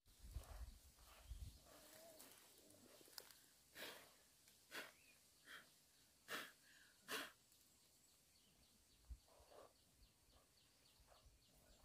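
Faint rustling of fern fronds and leafy undergrowth being picked and handled, with about five short swishes in the middle.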